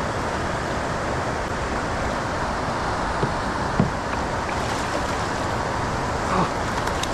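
Steady rushing outdoor noise, with a few faint short knocks, the sharpest about four seconds in.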